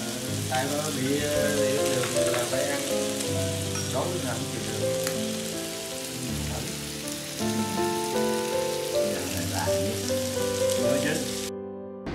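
Meat sizzling on a tabletop grill plate, a steady crackling hiss that cuts off suddenly near the end. Soft background music plays underneath.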